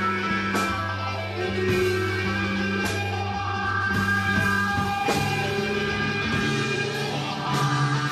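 Live rock band playing a psychedelic jam: electric guitar over held bass notes, with drum and cymbal hits about once a second.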